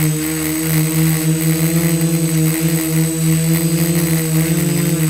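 DJI F450 quadcopter's four brushless motors and propellers running in flight, heard from the camera mounted on the frame: a steady buzzing hum whose pitch wavers slightly as the flight controller speeds the motors up and down.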